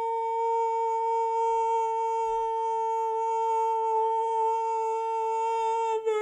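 A man's voice holding one long, steady, high note, an open-mouthed 'ooooh', wavering briefly near the end.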